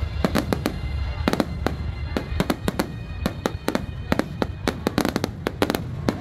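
Fireworks going off in a rapid, irregular string of sharp bangs and crackles, several a second, over a low rumble.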